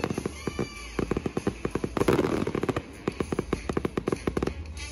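Fireworks going off in rapid salvos: a dense string of sharp bangs and crackles, heaviest about two seconds in, dying away near the end.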